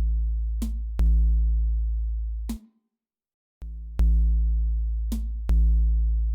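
Background electronic music: deep synthesized bass notes struck about once a second with a drum-machine beat, dropping out briefly a few seconds in.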